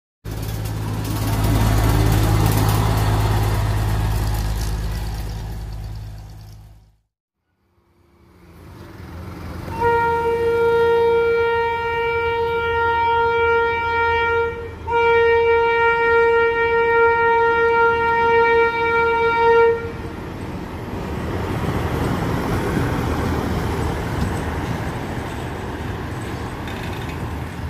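Diesel engine of a railway tower wagon running as it passes close by. After a short gap, a track-maintenance machine's horn sounds two long blasts on one pitch, then the machine rumbles along the track as it approaches.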